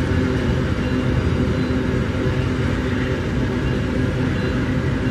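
Empty iron-ore wagons of a long freight train rolling past at steady speed: a steady rumble of steel wheels on rail, with a faint steady hum underneath.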